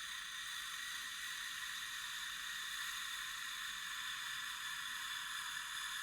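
Monster breathing sound effect: a long, steady, airy hiss, high and thin with no low rumble, held unchanged.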